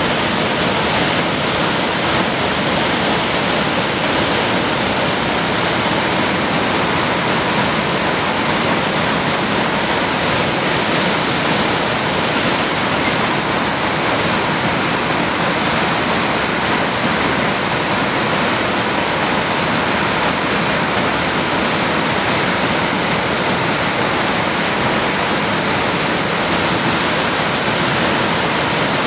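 Loud, steady rush of white water cascading over boulders in a fast creek.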